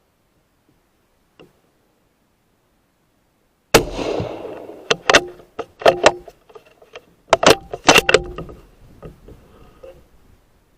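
A suppressed .243 Win CZ 550 rifle shot about four seconds in, followed by several sharp metallic clicks of the bolt being worked. A second loud report comes about three and a half seconds later, with more bolt clicks after it.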